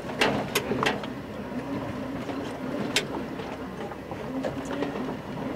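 Pickup truck driving a rough dirt road, heard from inside the cab: the engine runs steadily under a few sharp knocks and rattles as the truck jolts, the loudest near the start and about three seconds in.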